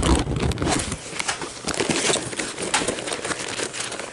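Handling noise as the camera is moved and set down: a low thump and rumble in about the first second, then rustling with many irregular crackling clicks that thin out near the end.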